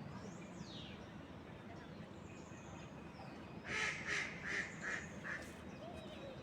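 A duck quacking: a quick run of about five quacks around the middle, each a fraction of a second apart. A faint falling whistle sounds just after the start.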